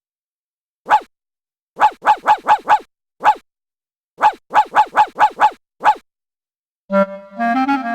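A small dog yapping in short, high yips: one, then a quick run of five, a single yip, then six more in a row. About a second before the end, an electronic tone starts and steps up in pitch.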